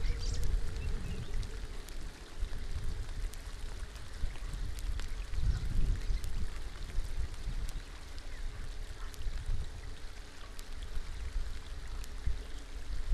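Steady rain falling on shallow open water, with scattered sharp drop ticks close to the microphone and a low rumble underneath.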